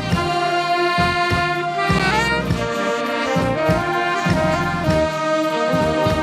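Live band playing social-dance music: a sustained horn melody over a pulsing bass line, with the lead sliding up in pitch about two seconds in.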